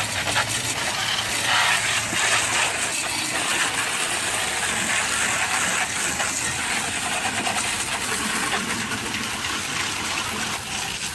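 Garden hose spraying a steady stream of water, hosing down a lawn mower after mowing.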